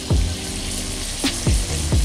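A whole fish frying in melted butter in a hot pan, a steady sizzle. Background music with a deep beat plays over it, its kick drums the loudest sounds, three times.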